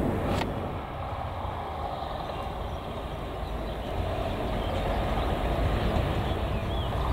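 Diesel shunting locomotive of a works railway running, a steady low engine rumble that grows louder from about halfway through.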